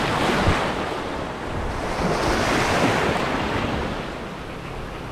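Small sea waves breaking and washing over a rocky, pebbly shoreline, swelling twice and easing off near the end, with wind buffeting the microphone.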